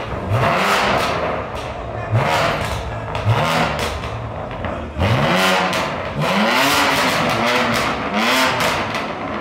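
BMW M4 G82's twin-turbo straight-six, on a freshly fitted aftermarket exhaust, being blipped repeatedly while stationary: about seven short revs, the pitch climbing and falling each time. Exhaust pops and crackles come on the lift-offs, from the car's stock engine software.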